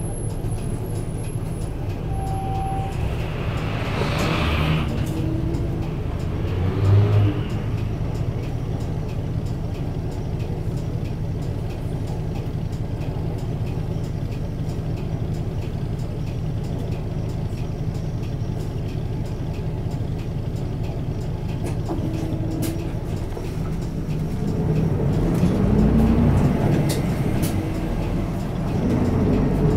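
Isuzu Erga Mio city bus's diesel engine running at low speed, heard from inside the cabin. There is a brief hiss about four seconds in and a low bump around seven seconds. Near the end the engine revs up with a rising pitch as the bus accelerates.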